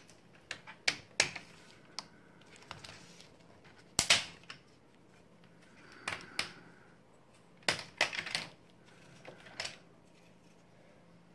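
Plastic screen bezel of an HP laptop being pried off by hand: a series of sharp, irregularly spaced clicks and snaps as it pops loose, the loudest about four seconds in.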